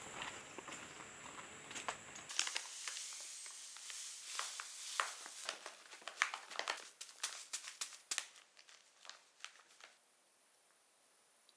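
Dense crinkling and crackling with many sharp clicks, starting abruptly about two seconds in and dying down near the end; before it, a steady high insect-like tone over a low background.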